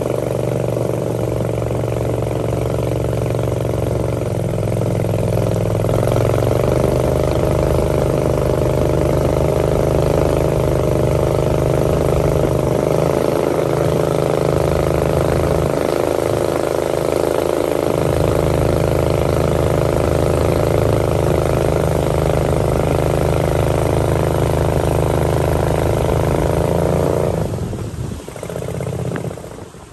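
Small motorboat's engine running steadily at cruising speed, with water rushing past the hull. Near the end the engine is throttled back and its note drops away, dipping twice.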